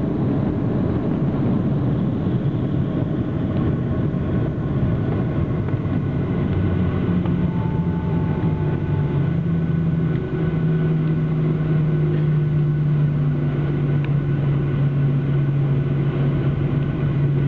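Boeing 737-800 cabin noise during the landing rollout: a broad, loud rumble of the jet slowing on the runway, settling about six seconds in into a steadier low hum from its CFM56 engines as the aircraft slows toward taxi speed.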